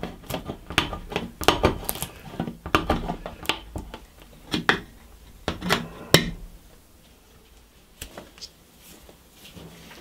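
SWIZA D04 multitool's lever-style can opener cutting around the rim of a steel food tin: a rapid, uneven series of metallic clicks and crunches, stopping about six seconds in. A couple of fainter clicks follow a little later.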